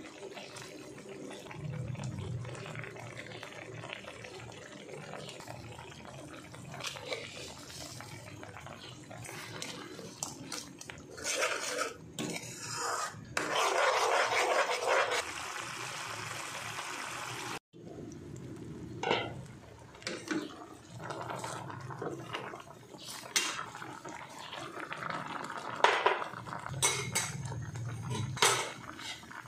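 Stovetop cooking sounds: a spatula scraping and stirring a reddish paste frying in a metal pan, with a louder stretch of sizzling near the middle. After that come scattered sharp clinks of metal utensils and pots.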